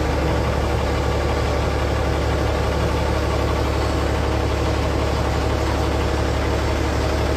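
Bell 429 helicopter's twin turboshaft engines and rotor running steadily on the ground before lift-off: an even, unbroken low drone with several held tones above it.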